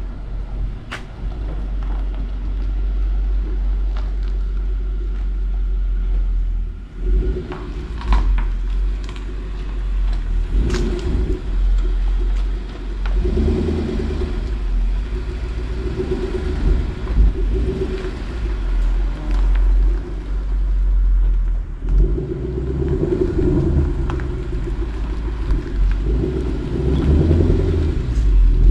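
A 2012 Ford Mustang GT's 5.0 V8, fitted with GT500 axle-back mufflers, running at low speed with a deep exhaust rumble. The note swells several times on light throttle, most strongly in the second half.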